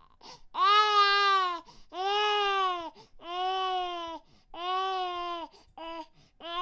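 Infant crying: a run of wailing cries, each a bit over a second long with a quick breath between them, and a couple of short choppy cries near the end before another wail begins.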